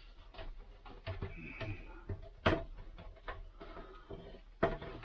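Scattered light clicks and knocks of parts being handled while fitting motorhome air-conditioning vent and duct pieces, with two sharper knocks about halfway through and near the end.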